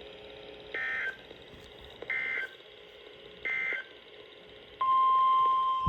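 NOAA Weather Radio Emergency Alert System tones: three short bursts of SAME digital data tones about 1.4 s apart, then, near the end, a steady 1050 Hz warning alarm tone begins.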